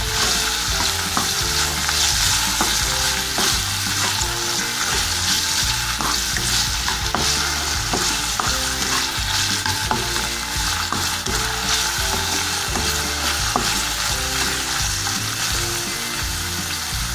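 Diced green capsicum sizzling as it fries in a little oil in a pan, stirred with a spatula that scrapes the pan about once or twice a second.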